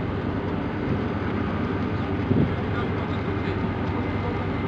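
Engines of a high-speed passenger catamaran running steadily at the pier: a constant mechanical hum with steady low tones, with one brief louder swell about halfway through.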